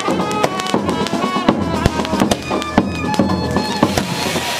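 Music with a reedy wind-instrument melody over a rapid, irregular run of sharp cracks that stops about four seconds in.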